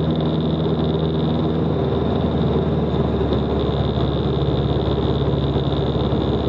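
Single-engine Van's RV light aircraft's piston engine and propeller running steadily at cruise power, heard from inside the cockpit with airflow noise over the canopy.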